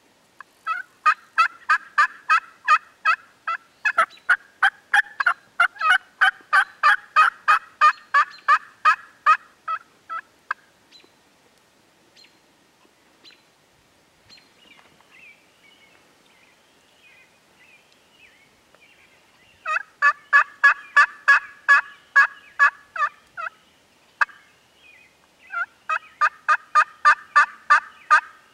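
Wild turkey yelping: three long runs of loud, sharp, evenly spaced yelps, about four notes a second, the first lasting some nine seconds, the others starting about twenty and twenty-five seconds in. Faint songbird chirps fill the pause between the first and second runs.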